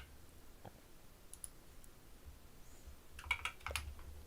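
Computer keyboard and mouse clicking while software is being worked: a few scattered clicks, then a quick run of several clicks about three seconds in.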